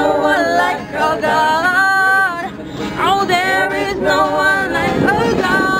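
A group of men and women singing a worship song together inside a moving van, with the van's road and engine noise beneath. The singing thins out near the end.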